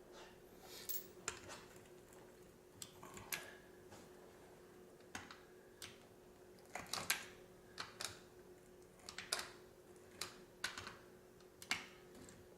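Irregular light clicks and ticks as a heated blade is worked slowly through a rubber stall mat, over a faint steady hum.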